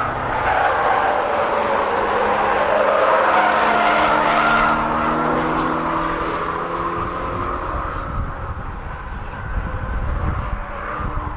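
Camouflaged BMW X1 prototype driven hard on a race track: the engine runs under load through a corner with tyres squealing at first, then its note slowly drops as the car moves away. A low rumble comes up near the end.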